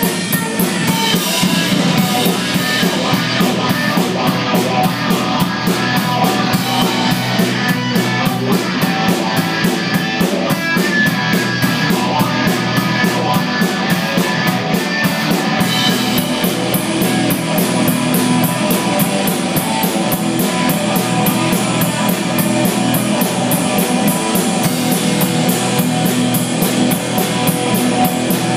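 Live rock band playing an instrumental passage on electric guitar, bass guitar and drum kit, with no vocals.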